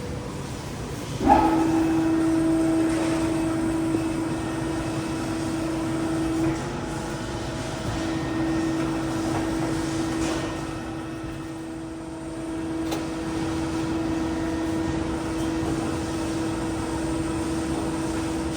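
Hydraulic pump unit of a 160-ton CNC press brake starting about a second in with a brief clunk, then running with a steady hum.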